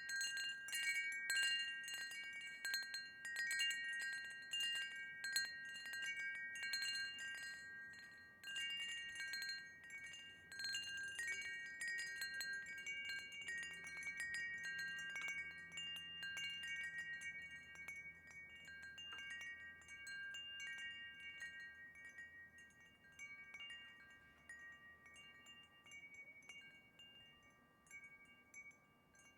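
Wind chime ringing: many overlapping strikes at a handful of fixed pitches with long ringing tones. The strikes are busy at first, then thin out and fade toward the end.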